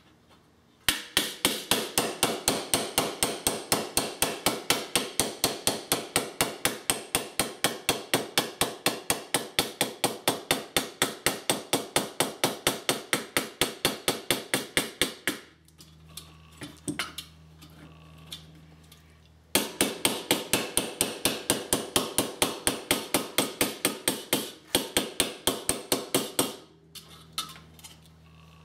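Small hammer tapping lightly and rapidly on thin tin-plate, a tin toy body held against the curved back of an adjustable wrench, to beat out a dent: about four to five sharp taps a second. The tapping pauses for about four seconds around the middle, and again near the end.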